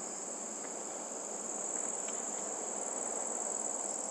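Crickets trilling steadily, a thin high-pitched sound, over a faint low hiss.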